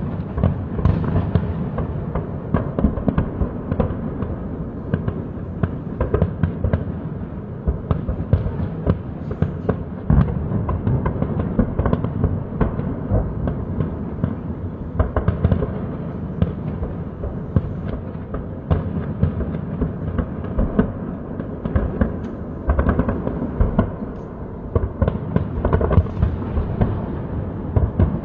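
Dense, continuous popping and crackling with frequent sharp bangs.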